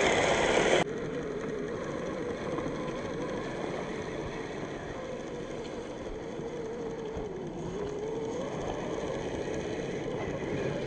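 Brushed 540 electric motor and gearbox of an Axial SCX10 III RC crawler whining as it drives, the pitch dipping and rising with the throttle. A louder passage cuts off abruptly about a second in.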